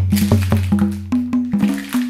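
Background music that starts suddenly, with a quick percussive beat of about five strikes a second over a stepping bass line.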